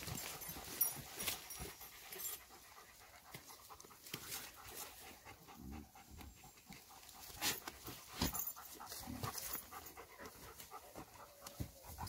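A dog panting, with scattered sharp clicks, the loudest a little past the middle.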